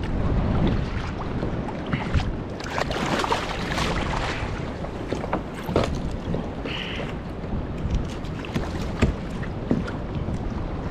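Wind buffeting the microphone over choppy sea water slapping and splashing around a plastic kayak, with scattered sharp knocks and a louder splashing stretch about three seconds in.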